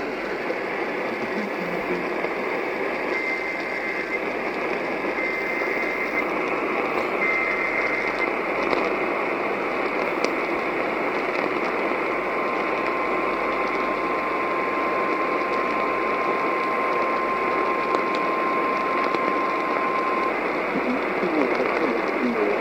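Emergency Alert System alert coming through a radio over steady static hiss. Three short bursts of the SAME header data tone, about two seconds apart, are followed by a long steady single-pitch attention tone lasting about eight seconds, the weather-radio 1050 Hz warning alarm.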